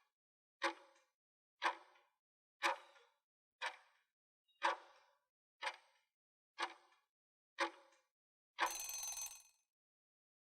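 Countdown timer sound effect: a sharp tick about once a second, nine in all, then a ringing burst lasting about a second near the end as the time runs out.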